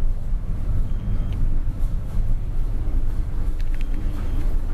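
Steady low rumble of a large container ship's engine and machinery carried through the hull, with a few light clicks near the end.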